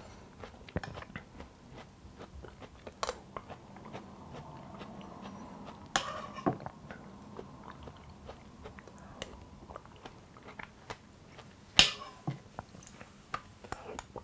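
A man eating poached pear from a spoon: quiet chewing and mouth sounds, with three sharper clinks of the spoon against the ceramic bowl.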